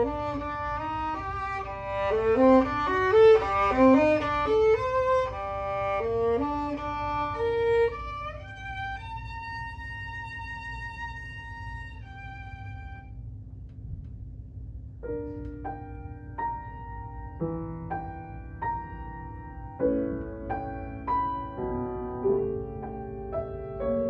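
Violin playing a fast run of notes, then a long held high note about halfway through, followed after a short pause by a slower passage of chords.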